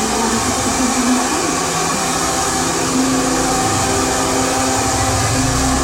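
Handheld hair dryer blowing steadily on a customer's hair, a loud even rush of air over the hum of its motor.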